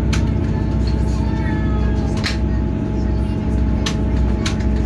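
Steady drone of a Class 158 diesel multiple unit under way, heard from inside the carriage: the running engine's hum over a low rumble of the running gear. A few sharp clicks come at uneven intervals, about two, four and four and a half seconds in.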